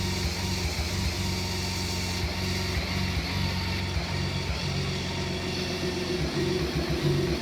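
BMW K1600B's inline-six engine idling roughly, its low note pulsing and stumbling unevenly instead of running smooth. The cause is unknown: no fault codes, and the owner wonders about bad fuel, exhaust or spark plugs.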